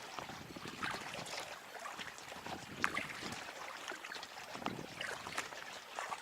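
Paddle strokes in the water from a packraft: repeated splashes and drips of water off the paddle blades, with small sharp knocks.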